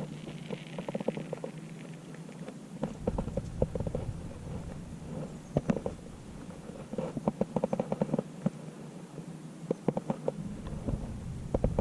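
Small clicks and rattles of fishing tackle being handled in short clusters while a lure is swapped, with intermittent low wind rumble on the microphone.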